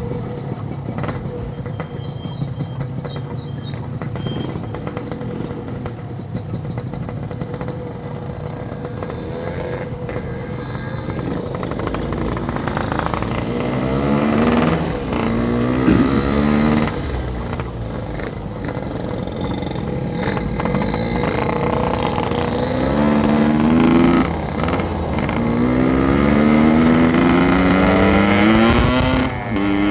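Yamaha RX-King 135cc two-stroke single-cylinder motorcycle engine under way, running fairly steadily at first, then accelerating from about halfway in several rising runs of revs, each falling back at a gear change.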